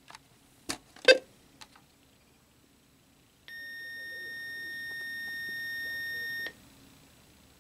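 Weather radio receiver sounding its alert beep as it activates for a weekly test: one steady, high electronic tone of about three seconds, growing slightly louder, then cutting off suddenly. Two sharp knocks come about a second in, before the beep.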